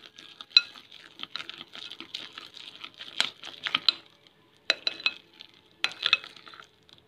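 Thick urad dal batter being beaten by hand in a bowl: irregular wet squelching strokes with sharp slaps and clicks, pausing briefly about two-thirds of the way through and again near the end.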